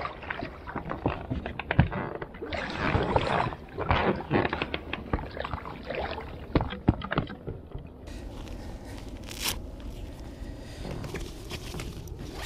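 Fishing gear being unpacked and handled: irregular scraping, rustling and short knocks, densest about three seconds in.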